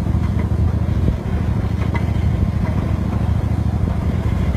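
Small mini train engine running steadily: a continuous low rumble with a fine, even pulse.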